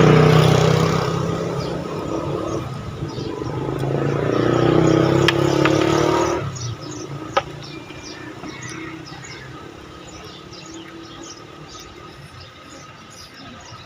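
A motor vehicle engine running close by, swelling twice and then dropping away suddenly about six seconds in; a quieter background with faint chirps follows.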